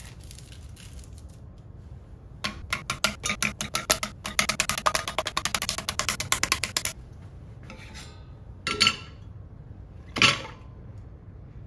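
Slices of American cheese slapping one after another into a stainless steel saucepan: a quick run of slaps that comes faster and faster, then two louder single slaps near the end.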